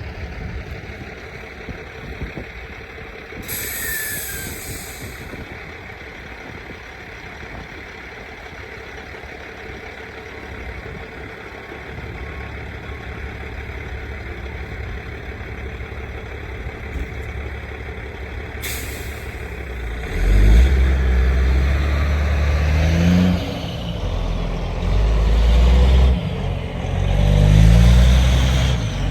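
A heavy vehicle's engine running, with two short hisses of air early and midway, then the engine getting much louder and revving from about two-thirds of the way in.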